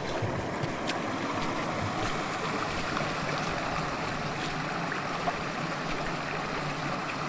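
Steady rushing noise of running water, with a few faint clicks.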